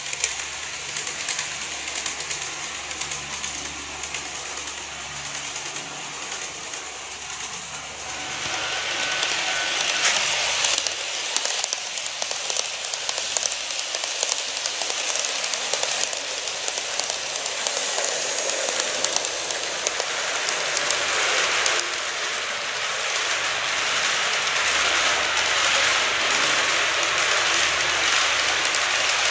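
KATO model trains running on model track: a steady rolling hiss of small metal wheels on the rails, with fine clicks over the rail joints and a low motor hum. It gets louder about eight seconds in as a train passes close.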